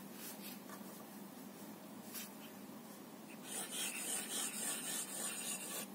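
Fountain pen nib scratching faintly across paper as it writes looping strokes, louder in the second half.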